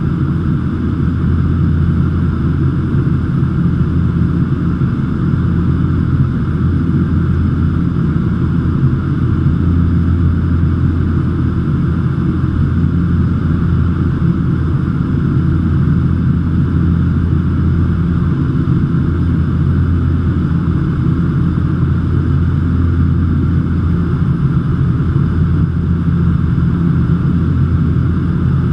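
Cessna 208 Caravan's single PT6A turboprop engine and propeller droning steadily in flight, heard from inside the cockpit as a constant deep hum with a higher whine above it.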